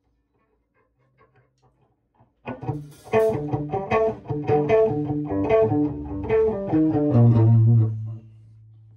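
Heavy doom metal riff on guitar and bass that starts suddenly about two and a half seconds in, then ends on one long low held note.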